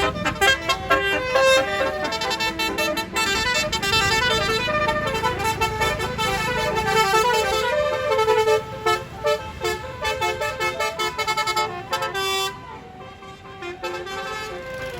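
Bus telolet (basuri) musical horn playing a fast tune of short notes that step up and down in pitch. It drops away about twelve and a half seconds in, leaving a few quieter held tones.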